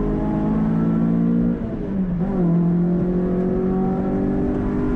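Renault Clio 182's 2.0-litre four-cylinder engine with a cone filter intake, heard from inside the caged cabin pulling hard at full throttle. About one and a half seconds in, a quick upshift briefly drops the sound and the revs. The engine then pulls again, its pitch rising steadily as the car gathers speed.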